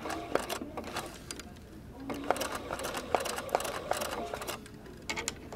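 Domestic sewing machine stitching silk ribbon onto hooped fabric, the needle clicking in short runs, with a longer run in the middle that stops near the end.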